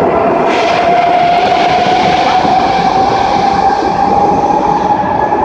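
Madrid Metro train pulling out of the platform and away into the tunnel. Steady loud rumble of wheels on rail, with a motor whine that slowly rises in pitch as it speeds up.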